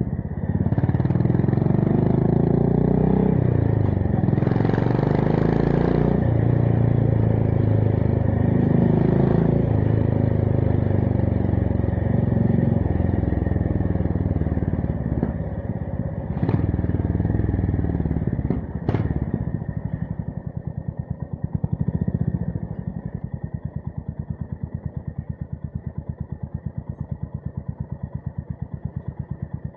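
Honda GB350S 348 cc air-cooled single-cylinder engine through a MILLER Spitfire slip-on exhaust: the engine revs up twice in the first six seconds as the bike accelerates through the gears, then runs steadily under way. A couple of sharp clicks come in the middle, and in the last ten seconds the revs drop to a slow, even thump at low rpm.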